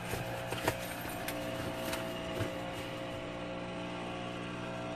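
Rustling and light clicks of waterproof over-trousers being pulled on and adjusted, in the first couple of seconds, over a steady low hum in the van's cab.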